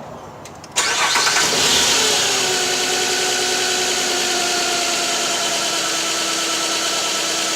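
2007 Nissan Quest's 3.5-litre V6 starting suddenly about a second in, revs falling back within a second or two to a steady idle. It runs on five cylinders: the weak ignition coil, pulled and hooked to a spark tester, gives no spark.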